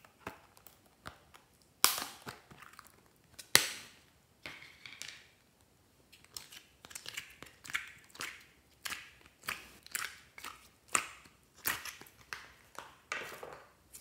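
Clear plastic slime container being handled: two sharp plastic snaps as the lid is pried open, then a run of short sticky crackles and squelches as glitter slime is peeled out of its plastic compartments.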